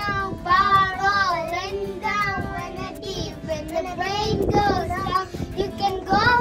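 A child singing, the voice wavering on held notes over several phrases.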